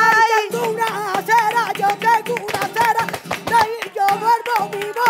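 Live flamenco: a wavering, ornamented sung line over flamenco guitar, with a steady stream of sharp hand claps (palmas).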